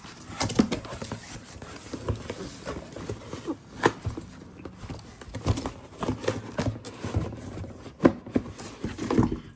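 Cardboard shipping box being handled and opened: irregular knocks, taps and rustles of cardboard.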